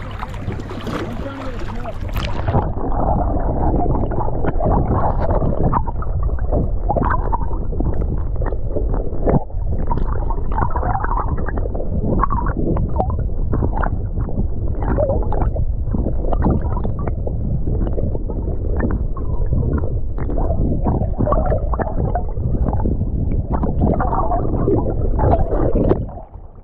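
Muffled rushing and gurgling of water heard through a camera held underwater as the board is towed and the tarpon's head is kept in the water. About two seconds in, the sound turns dull and thick, as when a microphone goes under the surface, and it eases off near the end.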